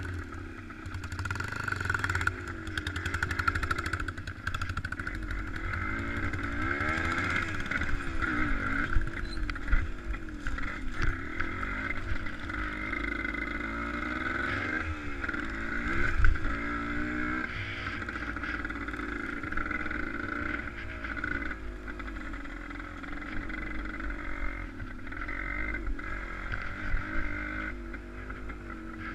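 An engine running steadily, its pitch rising and falling repeatedly as it revs up and eases off.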